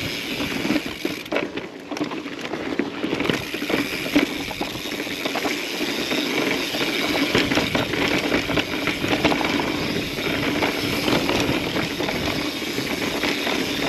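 Mountain bike rolling over sandstone slickrock: a steady run of tyre noise with rattling and fine clicking from the bike over the bumps.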